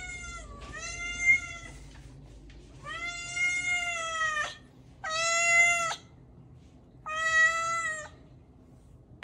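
Domestic cat meowing over and over: a string of long, drawn-out meows, five in all, one every couple of seconds, the middle one the longest.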